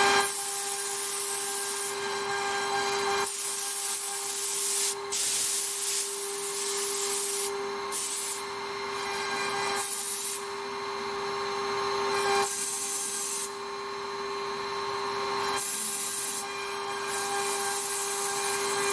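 The 3 kW water-cooled spindle of a CNC router hums steadily at high speed while its bit carves a relief into a wooden board. The cutting noise swells and drops back every second or two as the bit moves through its passes.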